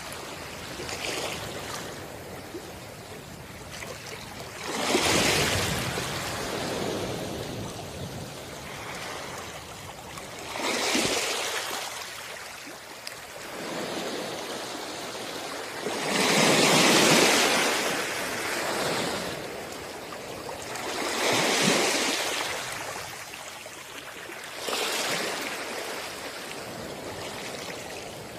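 Sea waves washing onto a shore: a rushing surge of water every few seconds over a softer steady hiss, with the biggest wave about halfway through.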